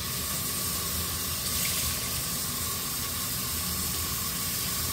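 Kitchen tap running steadily as vegetables are rinsed under it.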